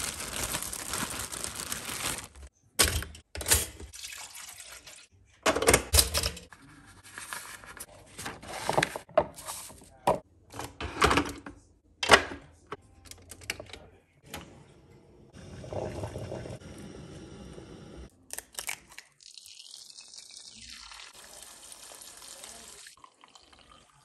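Kitchen handling sounds: a plastic bread bag crinkling, then a string of sharp clicks and knocks as a drip coffee maker's filter basket and lid are fitted. Later comes a softer steady hiss, and coffee pours into a ceramic mug near the end.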